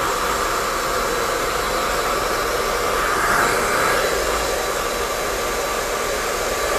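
Hair dryer fitted with a diffuser, blowing steadily as it dries curly hair, briefly a little louder about halfway through.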